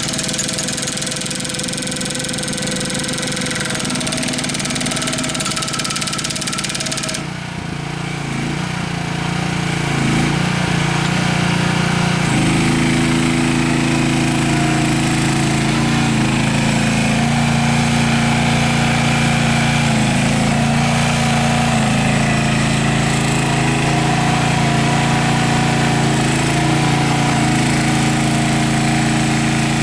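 Engine of a GroundHog KH14G one-ton machine running under load, its pitch shifting now and then as the hydraulics work. In the first several seconds the jackhammer attachment hammers rapidly against concrete; this cuts off abruptly about seven seconds in.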